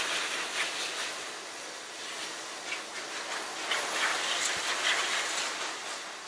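High-velocity pet force dryer blowing a steady rush of air through its hose nozzle into a wet curly coat, the hiss swelling and dipping as the nozzle is worked over the dog to blow water out of the undercoat.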